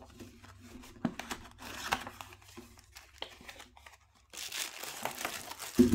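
Handling of a cardboard watch box: flaps being folded open, with light clicks and scrapes. After a short pause about four seconds in, clear plastic wrap crinkles as the wrapped inner box is handled.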